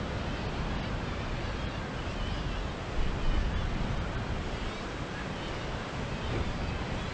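Wind buffeting the microphone with a steady low rumble, over the wash of sea surf breaking on the rocks below; briefly louder about three seconds in.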